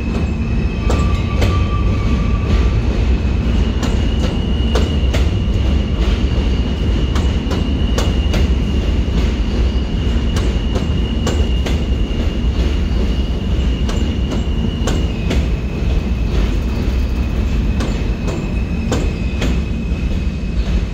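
An R160 subway train rolling along the station platform: a steady low rumble, repeated sharp clicks of wheels over rail joints, and a high steady squeal that shifts pitch slightly twice.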